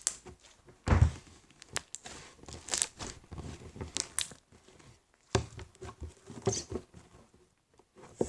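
Soft gooey slime being squeezed and stretched by hand: irregular sticky clicks, squelches and small pops of trapped air bubbles, with a couple of low thuds.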